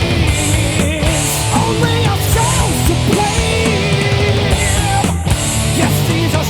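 Rock music, an instrumental passage with electric guitar over bass and drums, and a gliding lead melody line.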